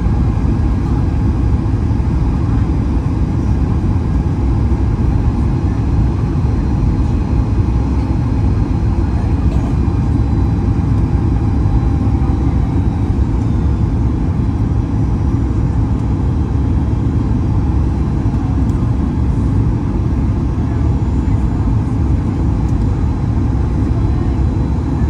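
Steady cabin noise inside a Boeing 737 MAX 8-200 on approach: rushing airflow and the hum of its CFM LEAP-1B engines, heavy in the low end, with a few faint steady tones above it.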